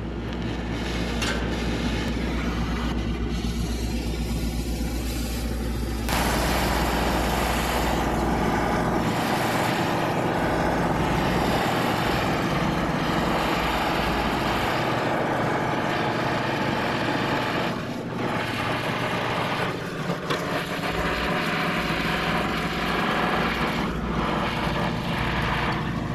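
Brazing torch flame hissing steadily while the copper line joints of a replacement scroll compressor are brazed under a nitrogen purge. It comes on abruptly about six seconds in, over a steady low hum, and runs on with small swells.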